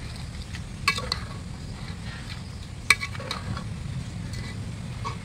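A long steel slotted spoon stirring masala in a large stainless steel pot over a wood fire, with the food sizzling. The spoon gives a few sharp clinks against the pot about a second in and again around three seconds.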